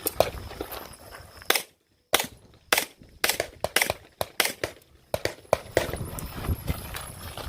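A stock service 9mm pistol firing about a dozen shots in quick, uneven strings, some in fast pairs, with a short pause about two seconds in.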